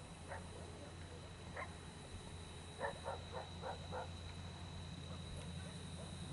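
Distant dog barking faintly: a couple of single barks, then a quick run of five about three seconds in.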